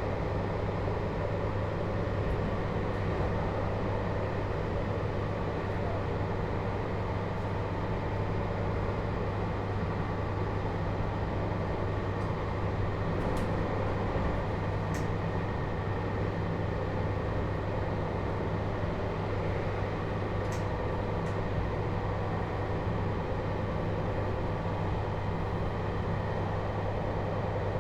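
Interior running sound of a JR Hokkaido 721-series electric multiple unit motor car (Toshiba GTO inverter), rolling at a steady speed. It is a constant rumble with a low hum and no rising or falling inverter whine, and a few faint light clicks in the middle.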